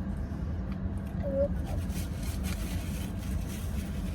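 Steady low hum of an idling car and its air conditioning heard from inside the cabin, with a few faint clicks and rustles.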